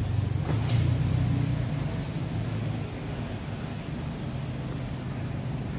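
Toyota Innova's engine running at low revs: a steady low hum, loudest in the first two seconds and then easing off.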